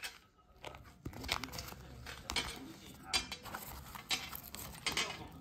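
Rustling and light clicks of a zippered fabric makeup brush case being handled by hand as its flaps and mesh pouch are moved, in short irregular bursts.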